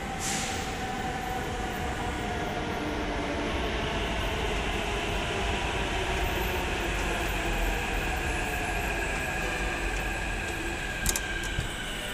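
Metro train with electric traction, its whine slowly falling in pitch over a steady rumble as the train slows. A couple of sharp clicks near the end.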